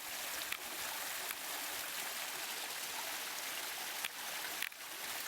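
Small waterfall spilling into a stream, a steady rushing hiss of falling water, with a few faint clicks and a brief dip in level about four and a half seconds in.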